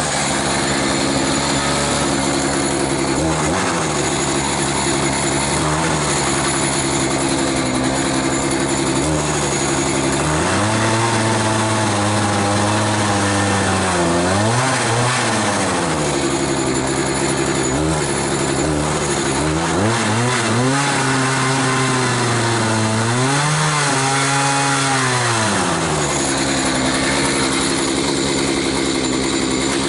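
Echo CS-590 Timberwolf two-stroke chainsaw running, idling with brief blips, then throttled up twice for about five seconds each time in the middle, its pitch sagging and climbing as it works into a big log, before dropping back to idle near the end.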